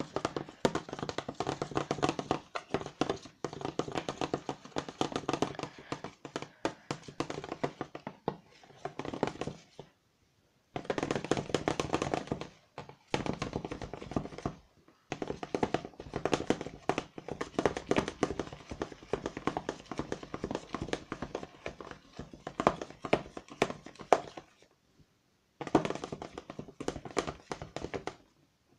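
Metal spoon stirring thick shaving-foam and glue slime fast in a plastic bowl: rapid tapping and scraping of the spoon against the bowl, in spells of several seconds with short pauses, as the borax-glycerin activator is worked in.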